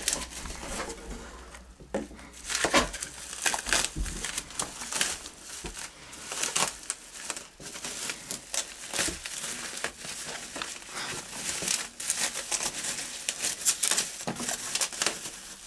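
Plastic bubble wrap crinkling and crackling in irregular bursts as it is handled and pulled off a small box by hand.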